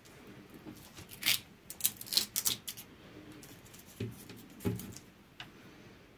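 Light, irregular clicks and rustles of a finished diamond-painting canvas being handled, its plastic-backed surface crackling under the fingers.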